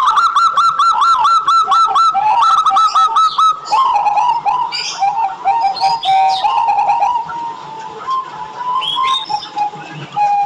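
Zebra dove (perkutut) singing: a fast run of repeated rising-and-falling cooing notes for the first three seconds or so, then a looser string of lower, varied notes.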